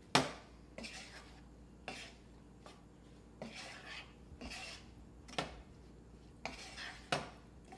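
Wooden spoon stirring crumbly cooked ground pork in a nonstick frying pan, scraping and knocking against the pan in irregular strokes about once a second, the sharpest knock right at the start.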